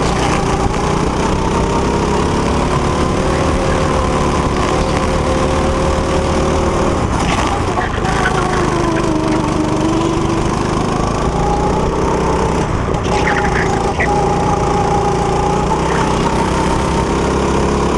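Go-kart engine running hard, heard from the driver's seat, its pitch sinking through a tight corner about halfway through and climbing again as it accelerates out.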